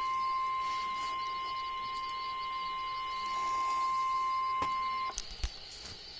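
NOAA Weather Radio 1050 Hz warning alarm tone: a single steady high-pitched tone with overtones, signalling that an emergency alert is about to be read. It cuts off suddenly about five seconds in, followed by a couple of clicks and a low thump.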